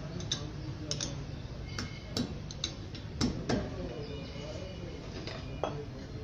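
Irregular metallic clicks and taps from hands and a tool working on a Toyota Highlander's front disc brake caliper as it is fitted over new pads and bolted up, a few of the taps ringing briefly.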